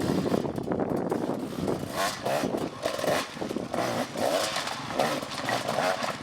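Off-road motorcycle engine running, its sound rising and falling in uneven pulses as the throttle is worked.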